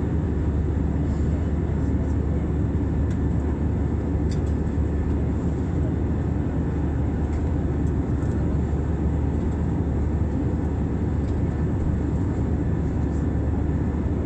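Steady low cabin noise of a jet airliner in flight, its wing-mounted turbofan engines and the airflow running evenly, with a few faint clicks.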